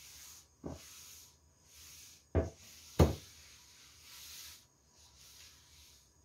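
Paper towel wiping a wooden tabletop in repeated rubbing strokes, with three knocks as a glass baking dish is moved across the table: a light one under a second in, then two sharper ones about two and a half and three seconds in, the last the loudest.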